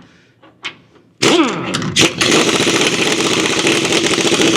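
A few light clicks, then about a second in a power wrench starts up suddenly and runs steadily, spinning a nut off the Scout's leaf-spring mounting.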